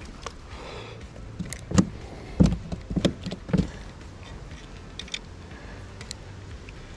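A handful of dull knocks, the loudest about two and a half seconds in, then a few light clicks near the end: fishing rod and reel being handled against the hull of a plastic kayak.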